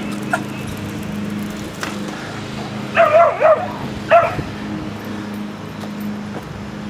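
A dog barking: a quick run of three high barks about three seconds in, then one more a second later, over a steady low hum.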